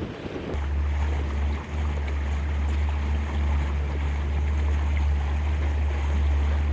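A boat underway: its motor gives a steady low drone, over a hiss of water and wind. The drone starts abruptly about half a second in.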